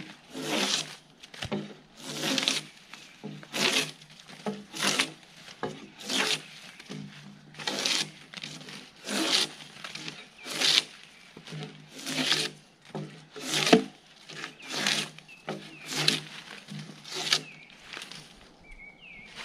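Gränsfors Bruks drawknife peeling bark off a log in pulled strokes, a scraping rasp about every second and a half, steady and rhythmic.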